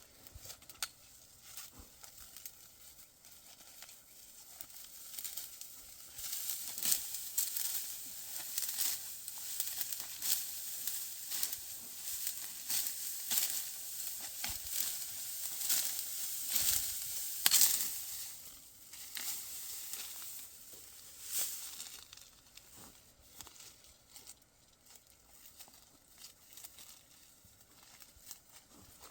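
Dry wheat stalks crackling and rustling as they are handled in the harvest, a dense run of irregular dry crackles. It grows louder after the first few seconds and dies down again toward the end.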